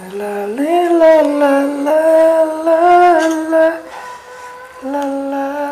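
A single voice singing a slow melody in long held notes, stepping up in pitch about half a second in, breaking off about four seconds in and taking up a new note near the end.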